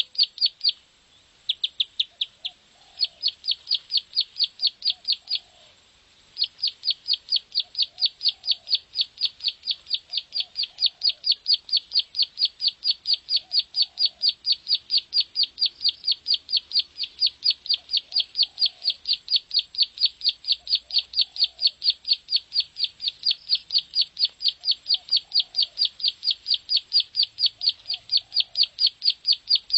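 Ciblek sawah (prenjak sawah), a small prinia, singing its rapid clicking song: a long run of sharp high notes, about three or four a second. The run breaks off briefly about a second in and again around three and six seconds, then goes on without a pause.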